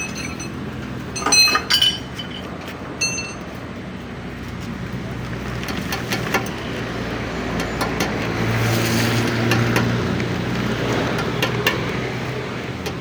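Metal striking metal with a short ringing tone, a few sharp clinks in the first three seconds, over a steady engine hum that swells about halfway through, then scattered light clicks.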